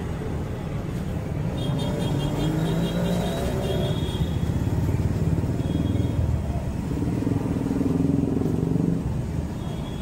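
Steady rumble of street traffic, with motorbike and car engines swelling as they pass, about two seconds in and again near seven seconds.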